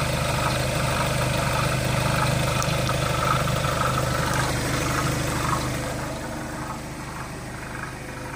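Skoda Octavia 3's 2.0 TDI four-cylinder diesel engine idling steadily, with an odd noise that the owner finds weird and cannot place. The sound gets quieter about two-thirds of the way through.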